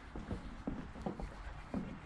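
Footsteps of a person walking at an even pace, about two steps a second.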